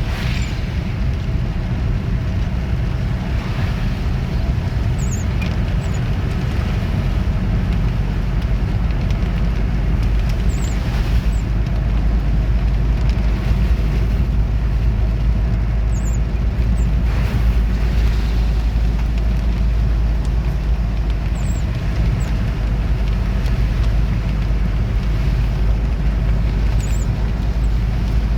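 A Mahindra SUV driving, its engine and road noise making a steady low rumble with wind on the microphone and a few faint knocks now and then.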